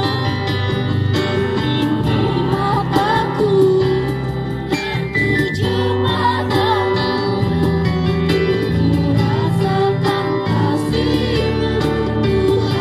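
A group of voices singing a religious song together, over steady instrumental accompaniment.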